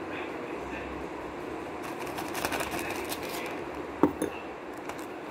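Thin plastic bag filled with icing rustling and crinkling as it is handled, busiest between about two and three and a half seconds in, with a single sharp knock just after four seconds.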